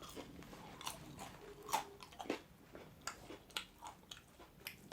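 Someone chewing and biting food close to the microphone, with scattered soft wet clicks and smacks.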